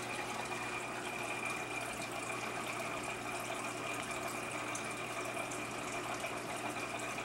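Aquarium filtration running: a steady wash of trickling, splashing water with a thin high whine held underneath.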